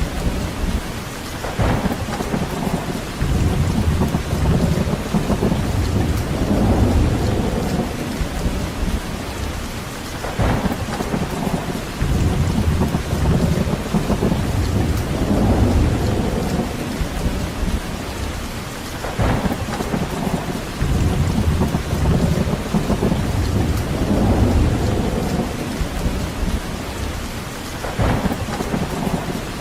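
Steady heavy rain with low rumbles that swell and fade every few seconds, and a short crackle about every nine seconds, the whole pattern repeating at that interval.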